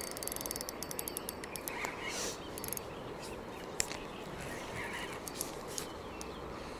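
Spinning fishing reel clicking: a fast run of fine ticks in the first second, then slower ticks for a couple of seconds and a single sharp click near 4 s, as the rod and line are handled.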